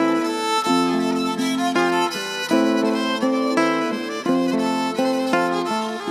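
Background music on a bowed fiddle, a lively melody of short notes changing several times a second over a lower held note.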